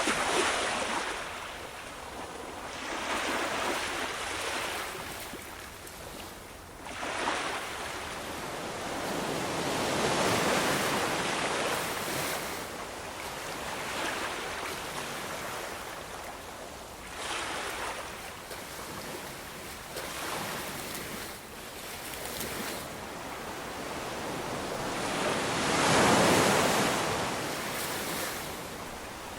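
Ocean waves washing onto a shore, a steady hiss of surf that swells and fades every few seconds, with one larger wave breaking loudest near the end.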